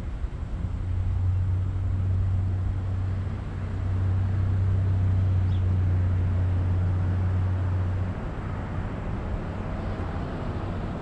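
Road traffic passing on a street, with a low, steady engine hum that stops about eight seconds in.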